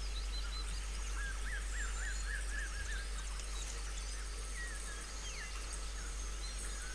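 Forest ambience: a steady hiss over a low rumble, with scattered high chirps from small calling animals, including a quick run of about seven chirps a little after a second in.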